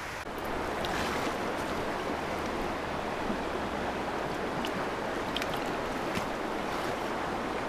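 Steady rush of flowing water in a rocky mountain trout creek, close to the microphone.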